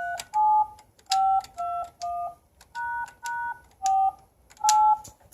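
Payphone keypad being dialed: a click and a short two-tone touch-tone beep with each key press, nine beeps in quick succession as a ten-digit number is entered.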